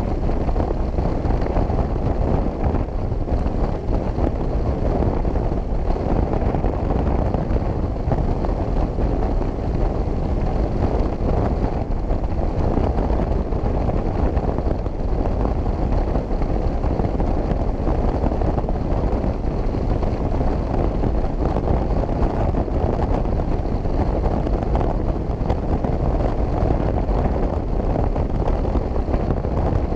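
Steady wind noise buffeting the microphone of a camera on a motorcycle cruising at road speed, mixed with the motorcycle's engine and tyre noise.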